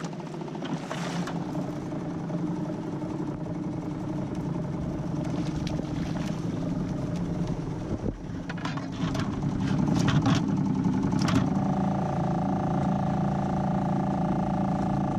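Small boat engine running steadily as the dinghy moves over the water. Its note steps up and gets louder about three-quarters of the way through, and a few sharp clicks come just before that.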